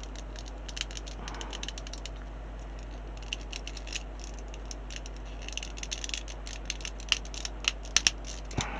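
Small plastic model-kit parts clicking and tapping as they are handled and pressed together: irregular light clicks that come thicker after about five seconds, with a few sharper ones near the end, over a steady low hum.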